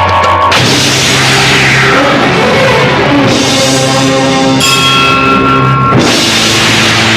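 Instrumental interlude of an Indian film song, a full ensemble with drums and percussion playing under held notes. The texture changes abruptly about half a second in and again near the end.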